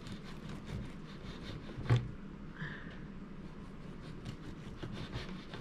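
Knife sawing through a warm loaf of banana bread in short, repeated strokes, with one sharp knock about two seconds in.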